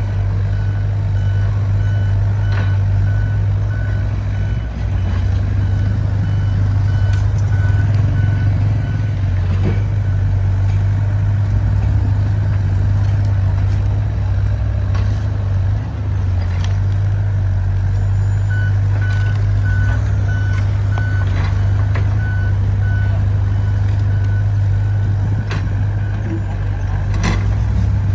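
Diesel engine of an XCMG XE60WA wheeled excavator running steadily with a low hum. A repeating backup alarm beeps through the first third and again from about two-thirds in, with a few scattered knocks.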